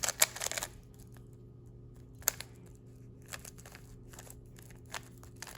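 Plastic 3x3 puzzle cube being turned by hand: a quick run of clicking turns at the start, then scattered single clicks and clacks of the layers, over a steady low hum.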